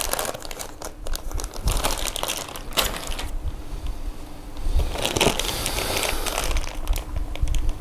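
Clear plastic parts bags crinkling and rustling as they are handled, in irregular crackles with a denser stretch of rustling about five seconds in.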